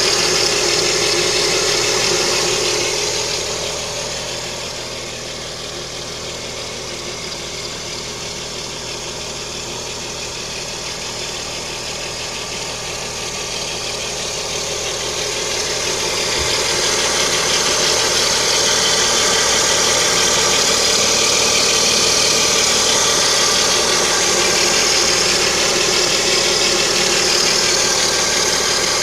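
Lada Kalina's 11194 1.4-litre 16-valve engine idling with a steady whistle from the timing belt. It gets quieter for several seconds a few seconds in, then comes back up to full level.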